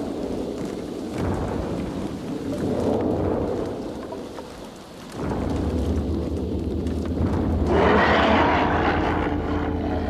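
Deep rolling rumble in swells, like thunder, with a rushing hiss. It jumps in level about five seconds in and builds to its loudest about eight seconds in.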